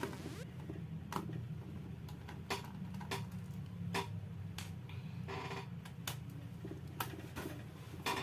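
Scattered sharp clicks and taps from a screwdriver and small parts inside an opened laptop as the hard drive's four screws are removed, over a low steady hum.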